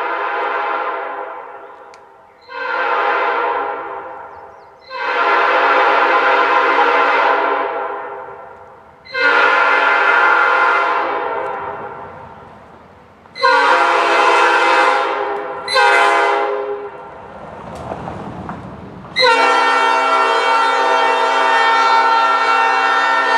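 A multi-chime train air horn sounded in a string of blasts, most trailing off over a second or two. A short blast comes about two-thirds of the way through. A brief rush of air noise precedes a long steady blast over the last few seconds.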